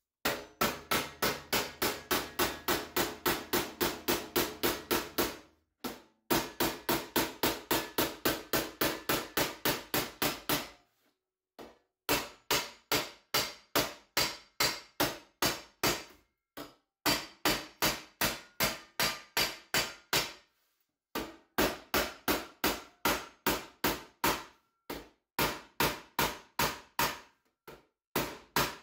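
Body hammer striking the edge of a sheet-metal bend laid over a steel I-beam: sharp metallic taps at about three a second, in runs of several seconds with short pauses between, tapping the bend flat into a tighter, sharper corner.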